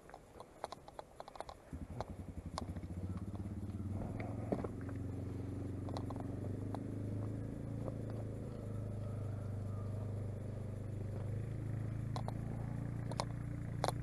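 An engine starts up about two seconds in and keeps running at a steady idle. Footsteps crunch and click on a stony dirt track.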